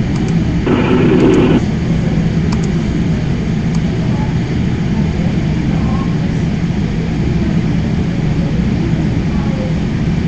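Steady low rumbling hum throughout, with a brief louder sound about a second in.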